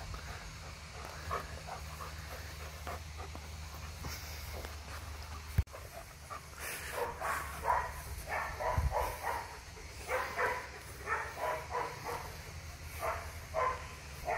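Dogs at play: a low steady rumble at first, then from about halfway a rapid run of short yips and barks.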